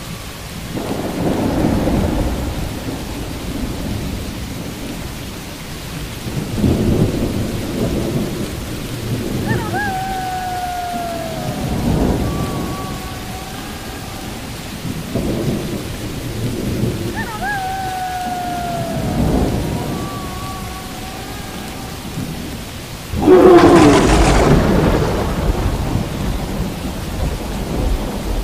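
Steady rain with thunder rolling in repeatedly, then a sudden, much louder thunderclap about 23 seconds in that rumbles on to the end.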